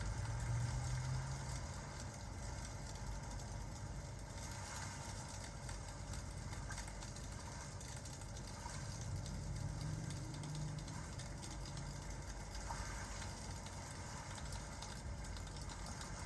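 Steady ambience of rain with a crackling fireplace, fine crackles over an even hiss and a low rumble that swells twice.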